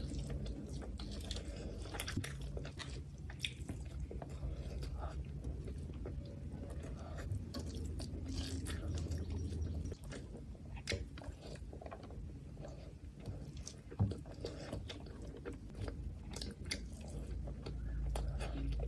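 Close-miked eating sounds: wet chewing and lip smacking of mouthfuls of rice and soft mutton liver curry, with the squish of fingers working the rice on the plate. Many small irregular smacks and clicks, with one sharper, louder click about fourteen seconds in.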